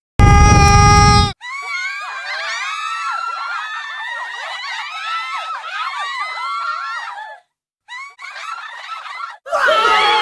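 Screaming sound effects: first a loud, distorted blast lasting about a second. Then many high voices scream at once, overlapping and gliding up and down, for about six seconds, stop, and start again briefly. Near the end a crowd sound with chatter and laughter cuts in.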